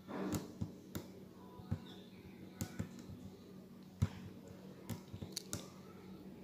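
Faint, irregular clicks and taps of an aari needle punching in and out of the fabric while stitching on gold ring-shaped zircon (chakri) pieces.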